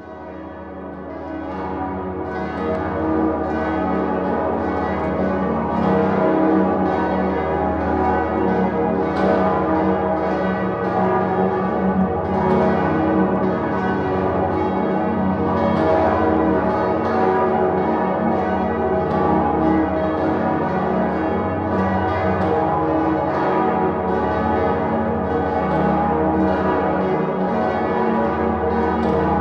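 Full peal of Salzburg Cathedral's seven swinging bells, tuned es°, ges°, b°, des', es', ges', as' and led by the great Salvatorglocke, ringing together as a dense wash of overlapping strokes and humming tones. It fades in over the first few seconds, then holds steady.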